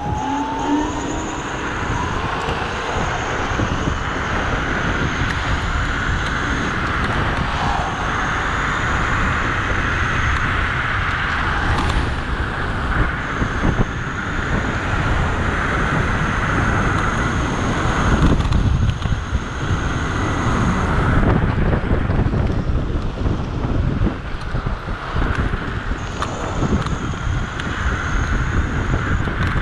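Wind buffeting the microphone and road noise from a Dualtron electric scooter riding fast on asphalt, a steady rushing rumble with gusts. A thin high whine comes and goes in stretches of a few seconds.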